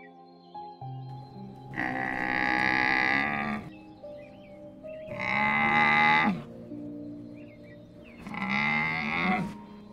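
Bactrian camel calling three times, long pitched calls of one to two seconds each, over soft background music.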